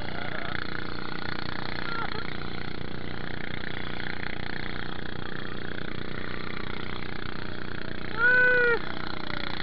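Outrigger pump boat's engine running steadily under way, with the rush of water beneath. About eight seconds in, a short, loud high-pitched call cuts in briefly over the engine.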